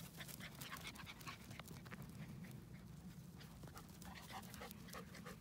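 Faint, quick panting and soft scuffling of a puppy and a small dog play-fighting.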